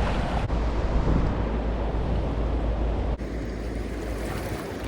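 Steady rushing noise of river water below a dam, with wind rumbling on the microphone; it steps down a little in level about three seconds in.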